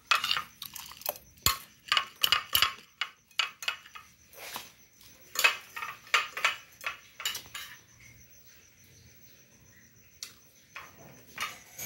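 Metal spoon scraping and clinking against a glass plate as farofa and ribs are scooped up: a quick run of clicks and scrapes over the first seven seconds or so, then a few more near the end.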